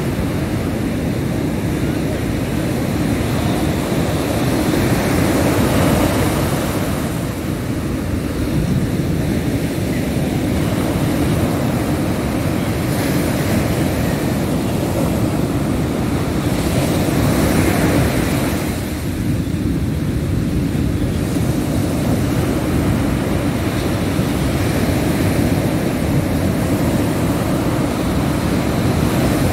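Ocean surf breaking on a beach: a continuous rush of waves that swells and eases every several seconds, with wind buffeting the microphone.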